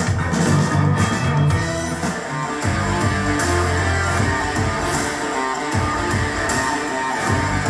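Rock music with guitar and a strong bass line, played back through a Mackie Thrash 215 powered PA speaker with a 15-inch woofer, at unity gain.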